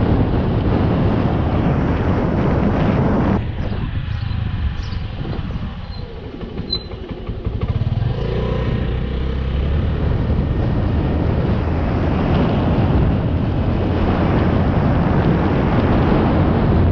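Small motorcycle being ridden, its engine rumble mixed with heavy wind noise on the helmet microphone. The wind drops off suddenly about three seconds in as the bike slows for a turn, then builds again from about eight seconds as it picks up speed.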